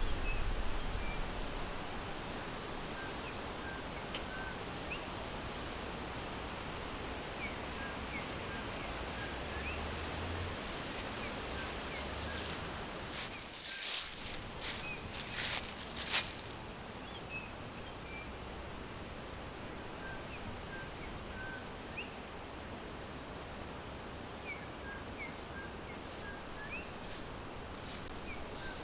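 Forest ambience: a steady rustle of wind in the leaves, with small birds chirping faintly and sparsely throughout. A few sharp crackles come about halfway through.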